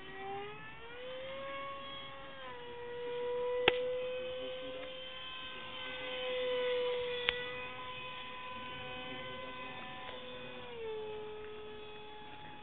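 Electric motor and propeller of a radio-controlled model plane whining in flight. Its pitch steps up about half a second in and drops back near the end. Two sharp clicks stand out over it, a few seconds apart.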